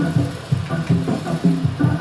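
Background music: a band playing with a steady beat.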